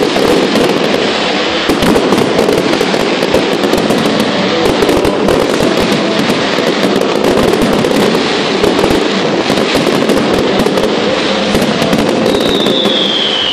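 An aerial fireworks display in a dense barrage: continuous rapid crackling and popping from many bursting shells and crackling stars, loud and steady. A single falling whistle starts near the end.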